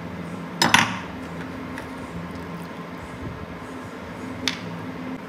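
Metal pipe-wrench hook jaw clinking as it is handled and scrubbed by hand in a plastic tub of soapy water. There is a sharp clink a little under a second in and a lighter one near the end.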